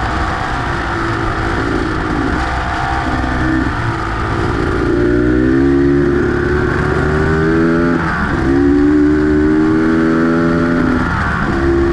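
Beta X-Trainer 250 two-stroke single-cylinder engine pulling under acceleration: the revs climb, drop at a gear change about eight seconds in, climb again and fall off near the end.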